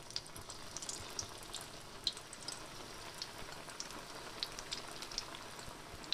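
Bread aloo bondas deep-frying in hot oil in an iron kadhai: a steady sizzle with frequent sharp pops and crackles.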